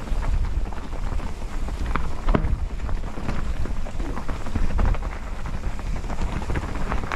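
Mountain bike rolling fast down a dirt trail: wind rumbles steadily on the microphone, while the tyres crackle over the ground and the bike rattles and knocks over bumps.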